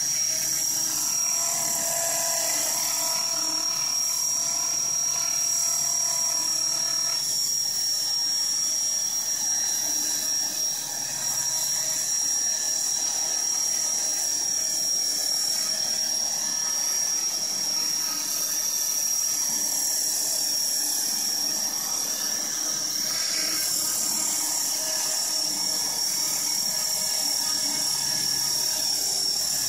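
Radio-controlled flybarless helicopter hovering low, its rotor and motor running with a steady high whine.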